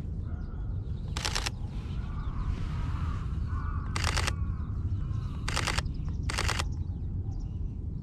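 Sony A7III camera shutter firing in four short rapid-fire bursts, over crows cawing and a steady low rumble.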